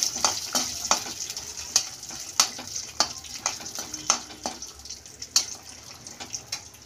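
Peanuts frying in desi ghee in a metal kadai, sizzling steadily while a perforated metal spatula stirs and scrapes them around the pan with irregular clinks.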